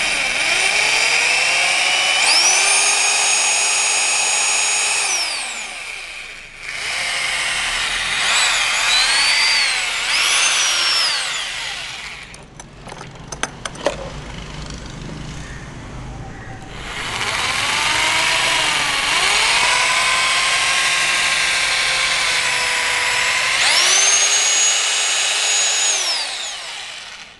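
Hyundai 20 mm SDS Plus rotary hammer drill run with no load in plain drilling mode, its motor whining up and down in speed as the variable-speed trigger is pressed harder and lighter. It eases off for a few seconds about twelve seconds in, with a few clicks, then runs up again and winds down near the end.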